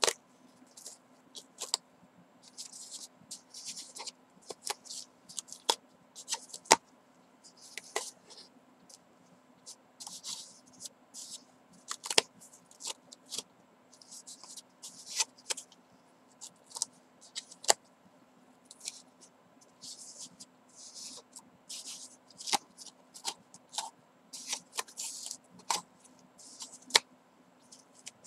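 Yarn strands being pulled out of and pressed into the slits of a cardboard braiding wheel: irregular short scratchy rustles of yarn against card, with scattered sharp clicks.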